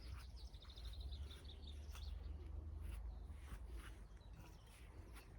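A small bird singing a quick run of short, high chirps over a steady low rumble from outdoor background noise.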